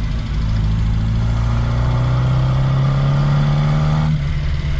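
Reliant Regal's four-cylinder engine pulling under acceleration, its note rising steadily, then dropping sharply about four seconds in as the throttle comes off. Heard from inside the cabin with the engine covers off, so it is loud.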